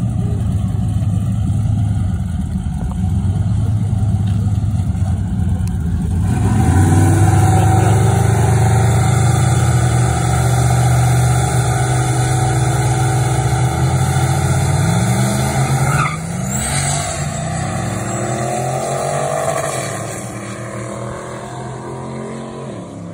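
Turbocharged pickup trucks, a Chevrolet S10 and a GMC Syclone, drag racing: engines rumbling at the line, then launching about six seconds in and accelerating hard, pitch climbing again and again through the gears. A brief high rising whistle comes about sixteen seconds in, and the engines fade as the trucks pull away.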